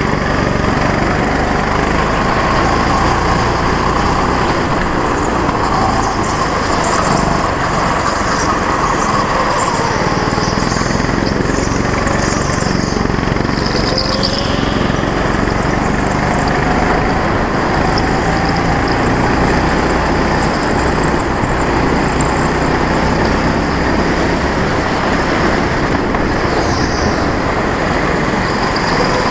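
Go-kart's small petrol engine running loud and steady at racing speed, recorded onboard, its pitch rising and falling as the kart goes through the corners.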